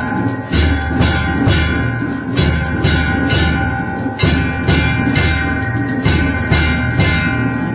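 Temple bells ringing continuously during the aarti, struck over and over, roughly twice a second, with a steady ringing tone carrying between strikes.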